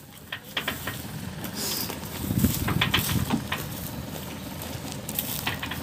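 Footsteps and scattered light knocks on a ferry's metal grid loading ramps and deck, with a cluster of dull thuds about two to three seconds in, over steady outdoor background noise.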